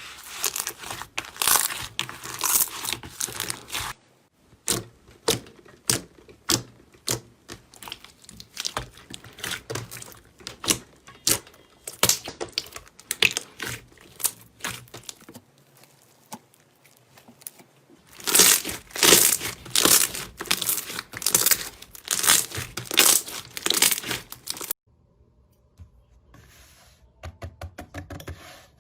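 Slime being squeezed and poked by hand, giving rapid runs of sharp crackles and pops. The sound stops abruptly about four seconds in and again near the end.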